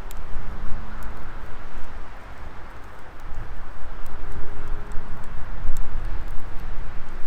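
Wood fire burning, with a heavy, uneven low rumble and scattered faint crackles and pops. A few faint steady hums come and go underneath.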